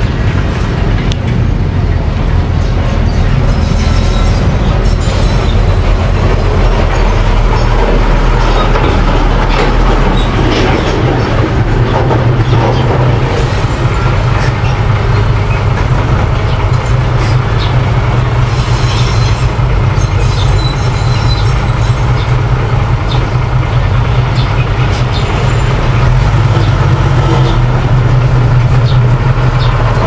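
Small crawler bulldozer's diesel engine running steadily under load as it pushes dirt, with occasional clanks from its tracks.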